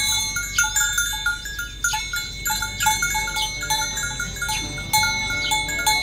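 Bells ringing in quick, repeated clinking notes at a few fixed pitches, several at once.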